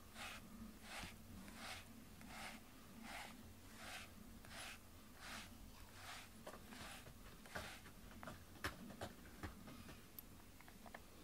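A brush drawn through a cat's fur in soft, faint strokes, about one every 0.7 seconds. After about six seconds the strokes give way to a few short, sharp clicks.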